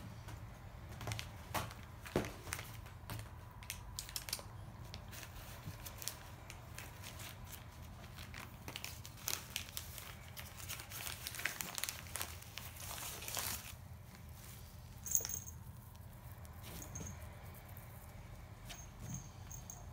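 A cat high on catnip rolling and pawing on a rug, its claws and body making irregular scratching and crinkling sounds. The sounds are busy for most of the stretch and thin out near the end.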